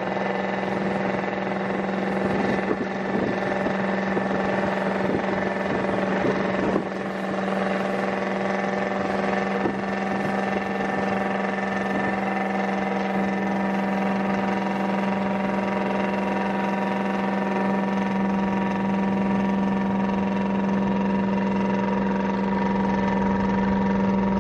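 Engine of a river passenger launch running at a steady cruise, a constant low drone with a hum of steady overtones.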